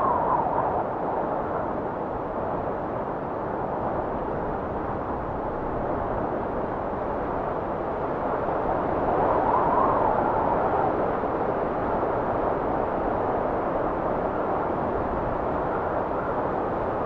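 Wind blowing steadily, swelling into a stronger gust about halfway through.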